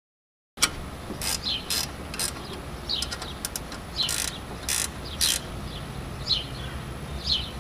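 Short metallic rasps of a wrench working the nut on a light fixture's steel mounting cover plate, in two groups of three, after the sound cuts in about half a second in. A bird chirps a few short falling notes in the background.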